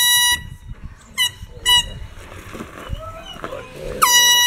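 Handheld canned air horn blasting: a long blast cuts off just after the start, two short toots follow about a second later, and another long steady blast begins near the end.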